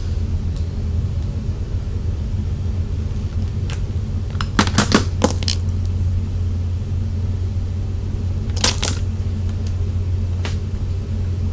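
A steady low hum with a few sharp clicks and taps, in a quick cluster about four and a half seconds in and another about eight and a half seconds in.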